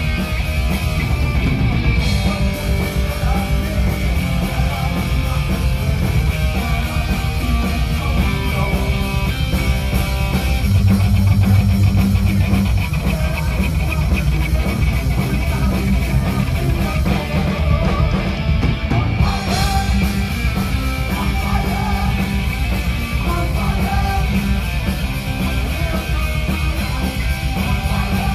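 Heavy metal band playing live: distorted electric guitar, bass and drum kit, loud and continuous.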